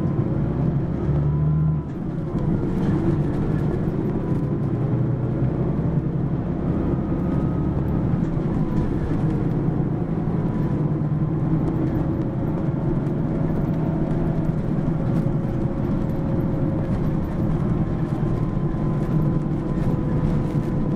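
Mitsubishi Fuso PA-MK25FJ medium-size diesel bus running, its engine and drivetrain humming steadily under way. The low engine note changes about two seconds in and again around eight seconds in, with a faint steady whine throughout.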